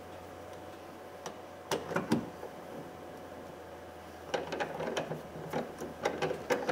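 A 10 mm ratcheting driver clicking in quick, slightly irregular runs as the bolts holding the interior door handle are run in. A couple of knocks come about two seconds in.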